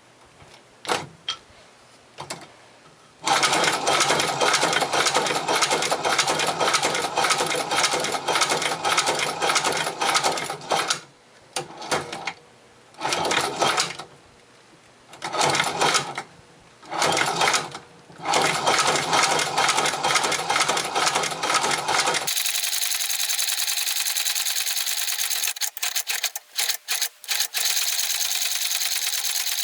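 A Chinese shoe patcher, a hand-cranked leather sewing machine, stitching leather: a fast, continuous clatter of its needle mechanism that starts about 3 seconds in and runs in several spurts with short pauses. At about 22 seconds it gives way abruptly to a steady hiss.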